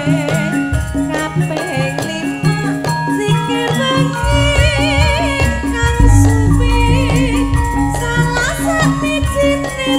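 Live campursari music: a woman singing a melody with vibrato over a Javanese gamelan ensemble with bonang and gongs, backed by a steady rhythmic bass and percussion. The bass gets heavier about four seconds in and louder still around six seconds.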